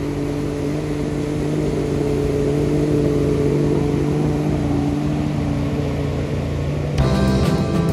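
Motorboat engine running steadily under way, a constant drone over rushing noise. Music comes in abruptly about seven seconds in.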